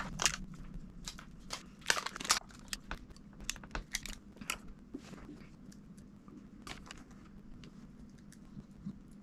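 Crinkling plastic and small sharp clicks as a new replacement MacBook Pro battery is handled, busy in the first half and thinning out after.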